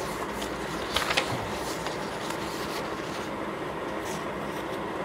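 Steady room noise like a running fan, with a few brief paper rustles and small taps about a second in, from papers being handled at a desk.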